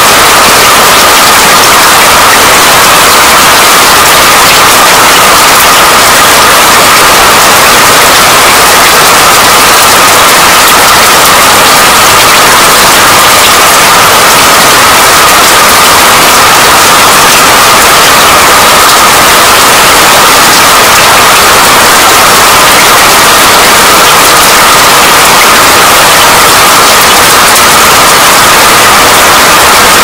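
Heavy rain falling: a loud, steady, dense hiss.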